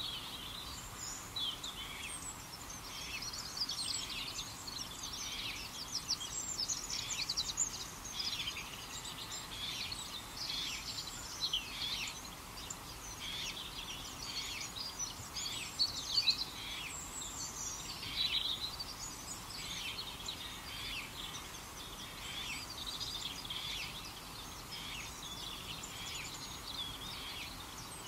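Birds chirping and singing without a break, many short high calls overlapping into a busy chorus.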